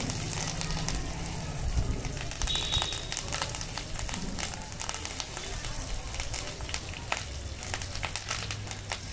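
Tempering spluttering in hot oil in a pan: many irregular pops and crackles, over a low steady hum.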